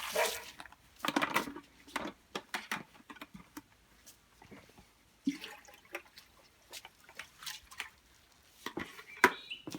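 Water splashing and dripping as a chicken waterer is cleaned out, with scattered knocks and clicks of the container being handled.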